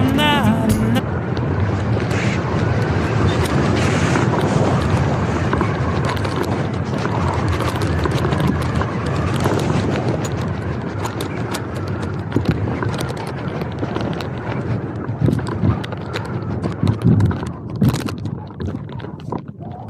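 Loud, steady wind rushing over the microphone of a hang glider in flight in strong wind, easing off toward the end, with scattered knocks and rustles in the last few seconds.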